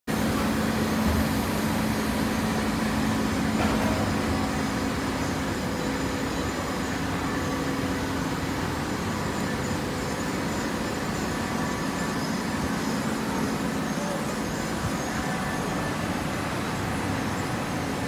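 Steady running noise of a horizontal hydraulic baler and its feed conveyor compressing coconut fibre, a constant low hum under an even mechanical din.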